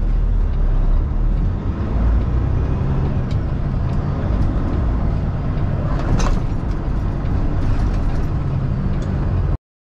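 Heavy semi truck's diesel engine running, heard from inside the cab, a steady low rumble with cab and road noise and a brief hiss about six seconds in. The sound cuts off abruptly near the end.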